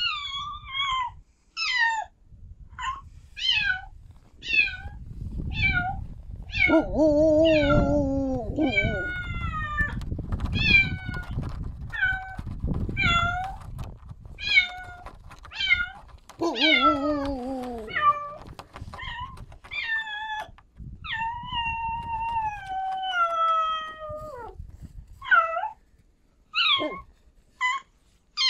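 Domestic cat meowing over and over: many short, high meows that fall in pitch, about one or two a second, with a few lower, longer meows and one long drawn-out meow about three-quarters of the way through.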